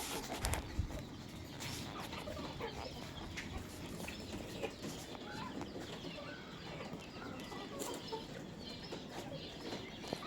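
Chickens clucking, with short calls scattered all through and a few sharp knocks in the first second.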